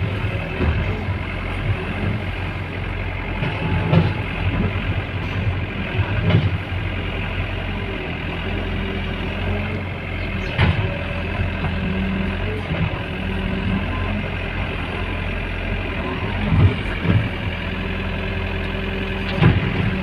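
Heavy diesel engine of earth-moving machinery running steadily, with a few short sharp knocks and clunks now and then.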